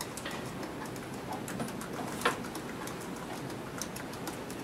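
Room tone of a small hall during a pause: a steady hiss with a few faint ticks and one sharper click about two seconds in.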